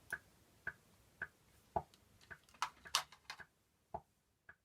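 A series of about ten short, sharp clicks, irregular and roughly two a second, from a computer mouse being clicked.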